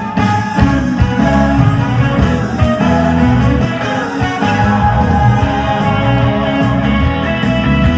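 Instrumental intro of a Korean trot song, with band music led by electric guitar over a steady beat.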